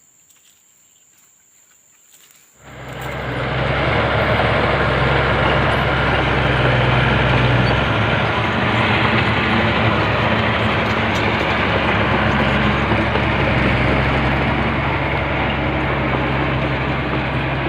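Bulldozer's heavy diesel engine starts sounding abruptly about two and a half seconds in, then runs loud and steady at working revs.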